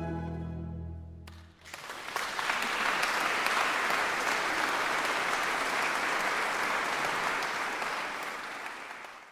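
A mandolin orchestra's final held chord, with a strong bass, ends about a second and a half in. The audience then applauds steadily, and the applause fades out near the end.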